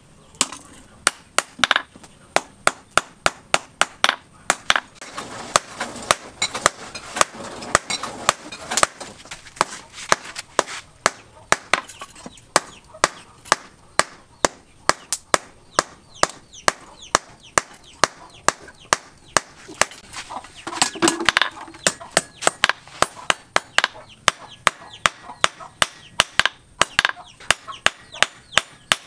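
Hand hammer striking a red-hot steel hook tine on a small post anvil, forging one prong of a six-pronged fishing hook: steady sharp metal blows, about three a second.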